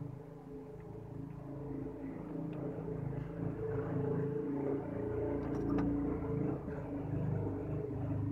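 Low engine rumble running steadily, with a single faint click a little after the middle.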